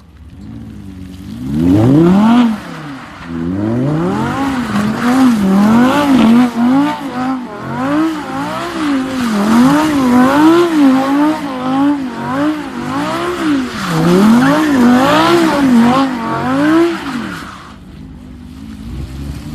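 Audi R8 engine revved up hard, then its pitch rising and falling again and again, about once or twice a second, as the throttle is worked in a drift or burnout; it dies away near the end.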